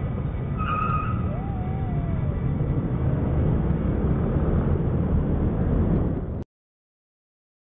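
Street traffic heard from a scooter-mounted camera: a steady low rumble of engines and road noise, with a brief high beep-like tone about a second in. The sound cuts out abruptly after about six and a half seconds.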